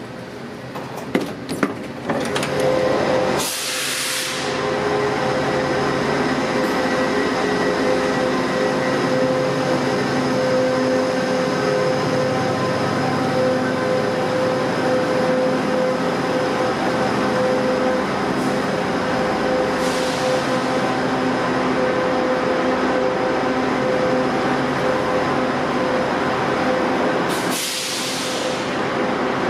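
Steady hum of a GO Transit diesel train standing at the platform, with short hisses of air about three seconds in, about twenty seconds in, and near the end.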